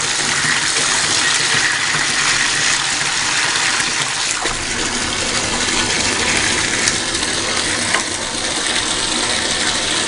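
Water gushing hard from a gravity-fed faucet into a bathtub, splashing into and over a plastic cup held under the stream. The noise is loud and steady.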